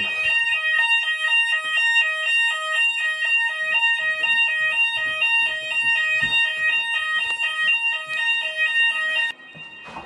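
Fire alarm sounders of a Hochiki ESP addressable fire alarm system sounding together in alarm during a system test: a steady high tone over a lower two-tone sound alternating about twice a second. They cut off suddenly about nine seconds in.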